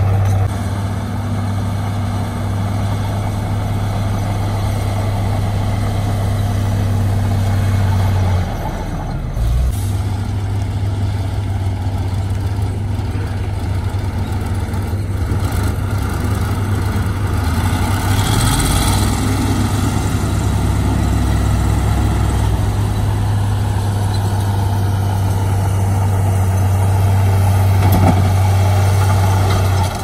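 Heavy diesel construction machinery running steadily with a deep, constant hum. A short hiss comes a little past halfway, and the sound breaks briefly about nine seconds in.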